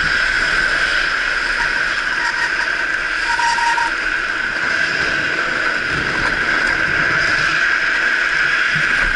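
Drift trike coasting fast downhill on asphalt, its hard plastic rear wheels sliding and rolling with a steady loud hiss, mixed with wind on the microphone.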